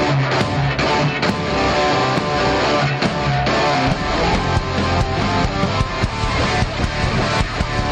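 Rock music led by strummed guitar, with a steady beat and fuller bass coming in about four seconds in.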